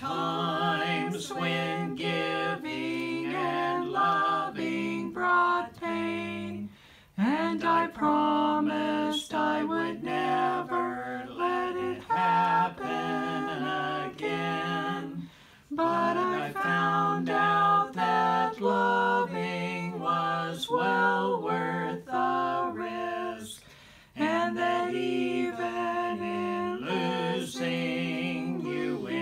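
An older man and woman singing a slow love song together, unaccompanied, with long held notes. The phrases are separated by brief pauses about every eight seconds.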